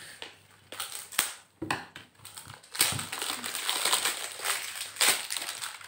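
Crinkly plastic wrapping of an L.O.L. Surprise ball being torn and crumpled: a few separate crackles, then a longer dense stretch of crinkling.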